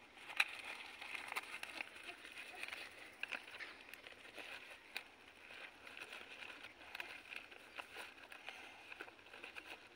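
Teak leaves crinkling and rustling in the hands as a leaf bundle is wrapped and tied with fibre: a run of small, irregular crackles and rustles.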